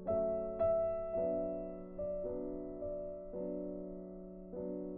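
Slow background piano music: notes and chords struck every half second to a second, each left to fade.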